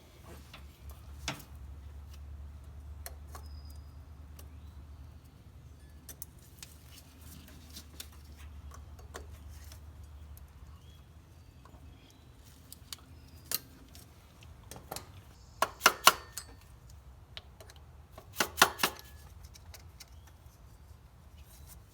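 Small metal parts clinking and clicking as they are handled, in two quick loud clusters about two-thirds of the way in, with scattered lighter ticks before them. A low steady hum runs under the first half.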